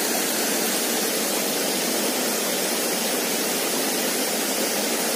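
Small waterfall spilling over rocks into a stream pool, a steady, even rush of water.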